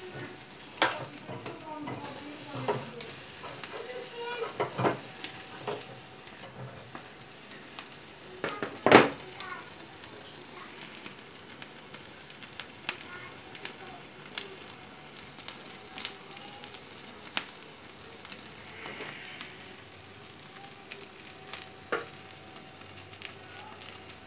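Chicken pieces roasting over a gas burner's open flame: a steady sizzle and hiss with scattered sharp pops and crackles, the loudest a single crack about nine seconds in.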